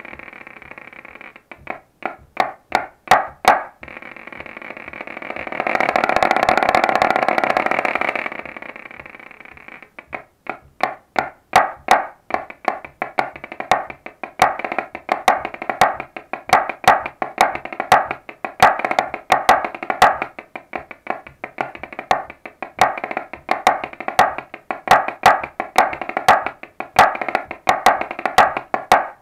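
A drum played with a pair of sticks in quick, crisp strokes along with a jig on bagpipes. The sticks pause for a few seconds near the start while the pipes carry on, then play steadily with the tune from about ten seconds in.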